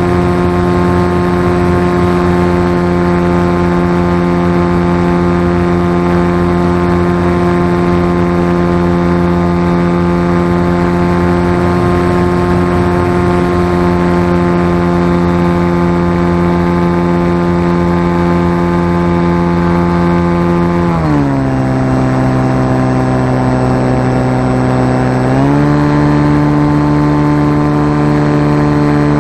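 Motor and propeller of a BlueWing RC flying wing running at a steady pitch, heard from a camera mounted on the wing. About two-thirds of the way through, the motor slows and its pitch drops, holds lower for about four seconds, then speeds back up.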